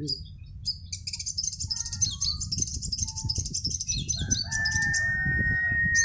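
Crimson sunbird song: a dense, rapid, high twittering trill, then a longer held call, steady in pitch, that drops away at its end over the last second and a half.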